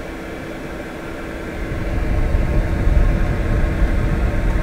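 Cheap Chinese 2 kW diesel air heater's blower fan running in its start-up phase, before the burner has fired: a steady hum with a level tone. From about a second and a half in, a louder low rumble of air rushes out of the outlet vent onto the microphone.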